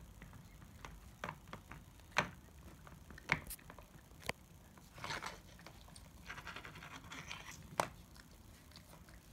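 Shih Tzu gnawing on a pig's leg: sharp, irregular cracks and crunches of teeth on the chew, with rougher bouts of chewing and scraping in between.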